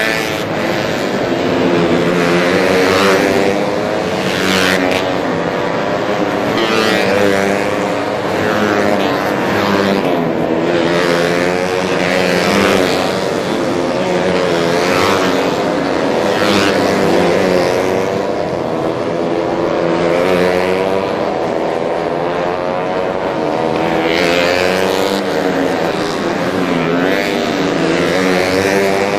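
Several racing motorcycle engines revving hard through the gears as they pass, pitch climbing and dropping again and again, often overlapping.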